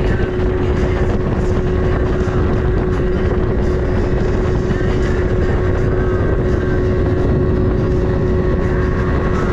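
Bass boat's outboard motor running under way, a steady whine over the rush of water and wind.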